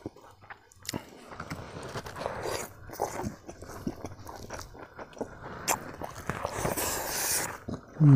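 Close-up eating sounds picked up by a clip-on microphone: a person biting and chewing chicken curry pieces eaten by hand, with irregular wet smacks and clicks. A longer sucking slurp comes near the end as fingers go to the mouth. A brief, loud, low voice sound falls in pitch at the very end.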